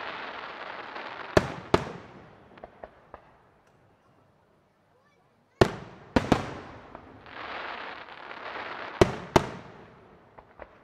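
Aerial fireworks shells bursting with sharp bangs: a pair about a second and a half in, a quick cluster a little past halfway, and another pair near the end, with a few smaller pops between. A long hissing crackle of glittering stars runs at the start and again around seven to nine seconds in.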